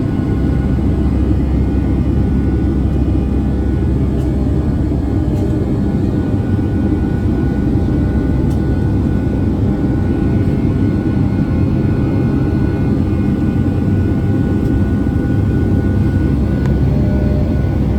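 Steady rumble of a Boeing 757-200's jet engines and airflow heard inside the passenger cabin, with a few faint steady tones above it.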